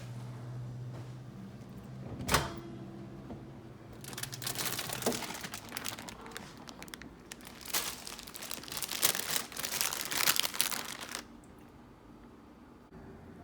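A single sharp knock about two seconds in, then two stretches of crinkling and rustling from something being handled, from about four to eleven seconds in.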